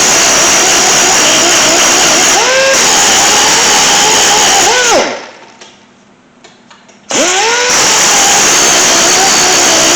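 A small high-speed electric grinding tool runs twice, about five seconds and then about three, with a short pause between. Its whine rises as the motor spins up and falls as it winds down each time. It is grinding metal off the brake pads so they fit the caliper.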